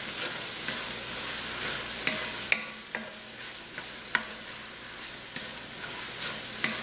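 Chopped vegetables sizzling steadily as they sauté in oil in an enameled Dutch oven. A wooden spoon stirs them, knocking and scraping sharply against the pot several times at uneven intervals.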